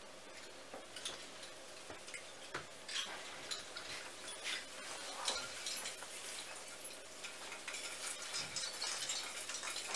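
Rustling and small clicks of gift wrapping and boxes being handled under a Christmas tree, coming in irregular crinkly bursts that grow busier after the first second.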